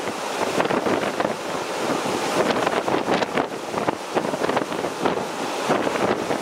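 Strong, gusty wind buffeting the microphone over wind-driven waves on the St. Lawrence River during a storm.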